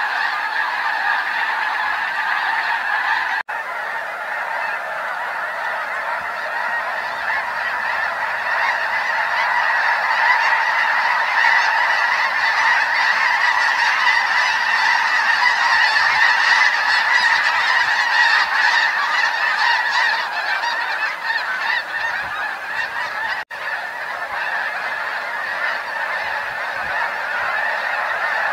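A large flock of snow geese calling together: a dense, unbroken chorus of overlapping honks, a little louder in the middle, that cuts out for an instant twice.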